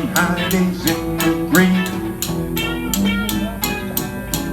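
Instrumental outro of a song: guitar playing over a steady beat of about three strokes a second, with some notes bent upward.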